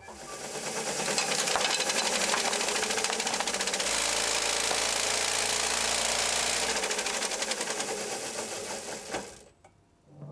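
Vibration test rig shaking a steel plate studded with bolts: a fast, dense mechanical rattle that builds over the first second or so, holds steady, then cuts off near the end.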